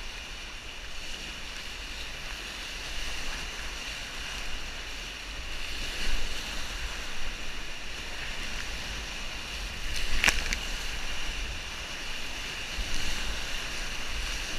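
Whitewater rapids rushing and churning around a whitewater kayak, heard from the paddler's GoPro, with louder surges as the boat crashes through waves. There is a single sharp knock about ten seconds in.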